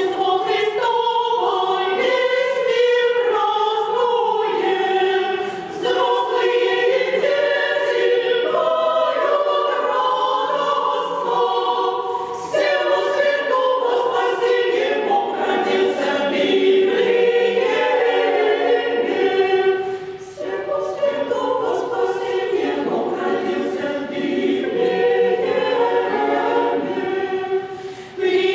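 Women's choir singing Orthodox Christmastide chant a cappella, in phrases with brief breaks between them.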